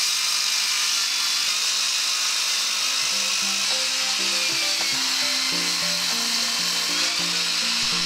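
Corded circular saw ripping a 2x6 board lengthwise along a tapered line, running steadily with a high whine that sags a little under load and rises again. Background music with stepped notes comes in about three seconds in.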